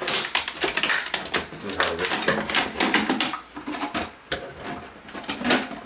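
A knife cutting into a thin plastic drinks bottle, the plastic crackling and clicking in quick, irregular bursts.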